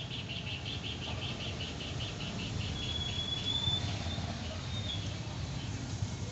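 High-pitched chirping: a quick run of about six chirps a second, then one thin whistle held for about a second, over a steady low rumble.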